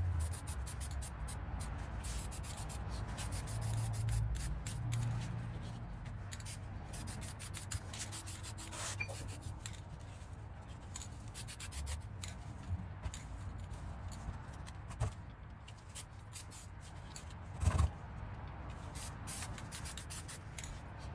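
Aerosol can of enamel spray paint spraying onto a steel maul head, a continuous noisy spray with a single sharp knock near the end.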